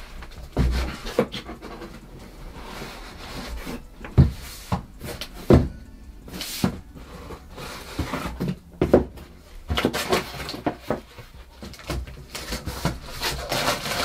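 Cardboard packaging being handled: boxes and inserts scraping, rustling and knocking against each other and the desk as they are pulled out of a carton, with several sharp knocks.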